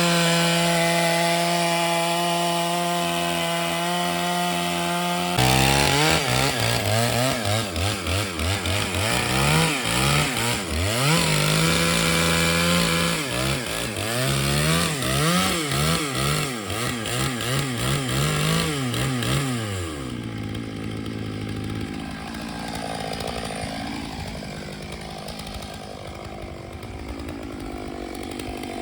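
Stihl MS 881 two-stroke chainsaw on a chainsaw mill, cutting lengthwise through a log. Its engine holds a steady pitch at first. About five seconds in, the engine speed begins rising and falling over and over. From about twenty seconds in it is somewhat quieter, with a lower, slowly wandering pitch.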